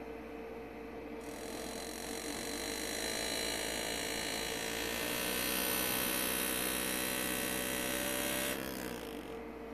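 Pneumatic hand-engraving graver buzzing as it cuts into soft pewter, set to low air pressure and a short stroke. It starts about a second in, runs steadily, then slows and stops near the end. A steady electrical hum sits underneath.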